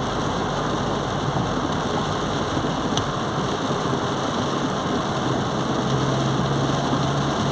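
Inside a car in heavy rain: a steady wash of rain on the car and tyres on the wet street, with the engine running at low speed. A low engine hum becomes plainer near the end.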